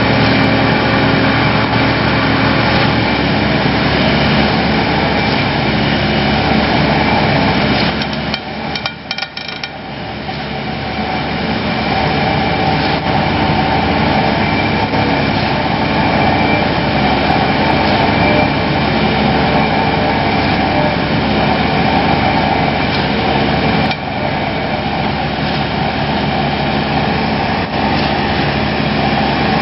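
Excavator-mounted vibratory sheet pile hammer running with the excavator's diesel engine: a loud, steady mechanical drone. About eight seconds in it briefly drops away, then builds back up over a couple of seconds.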